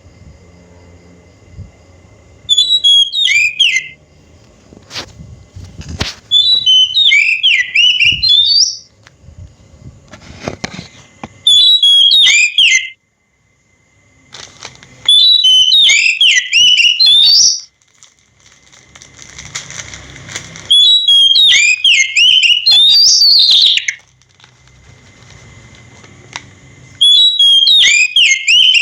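Oriental magpie-robin singing: six loud phrases of quick, varied whistled notes, each one to three seconds long, separated by pauses of a few seconds.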